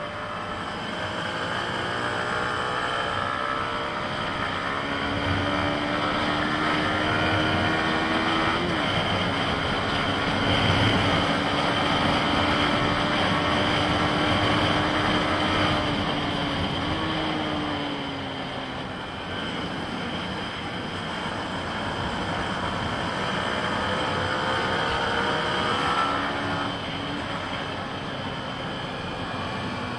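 Yamaha MT-15's 155 cc single-cylinder engine pulling hard through the gears. The note rises, then steps down at shifts about nine and seventeen seconds in, eases off briefly and climbs again before another shift near the end, over a steady rush of wind noise.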